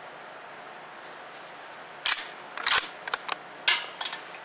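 Faint steady hiss, then a quick cluster of sharp clicks and knocks close to the microphone starting about two seconds in: handling noise from gear being moved.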